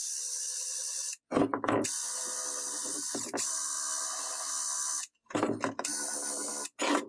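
Workshop tool noise in short edited clips: a steady hiss that cuts off abruptly several times, with brief louder clatters around the cuts.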